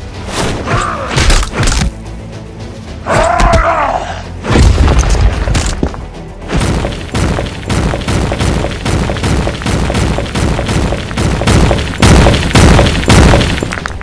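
Fight sound effects over a music score: heavy punches and deep booming impacts, a few at first, then coming several a second, with the heaviest booms about a third of the way in and near the end.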